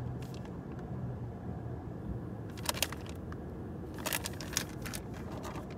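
Plastic food packet crinkling as it is handled, with short crackles about two and a half seconds in and again around four seconds, over a steady low hum.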